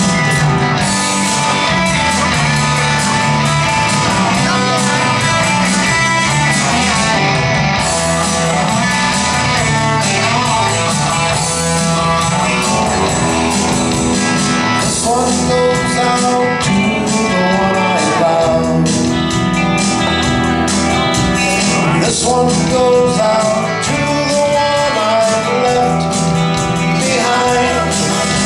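A live band playing on electric guitars, with a man singing into a microphone.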